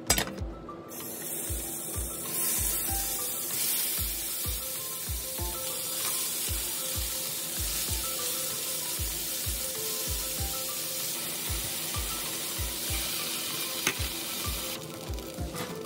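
Sliced pork, carrot and green pepper sizzling loudly in hot oil in a frying pan as they are stirred with chopsticks. The sizzle starts about a second in and dies down near the end.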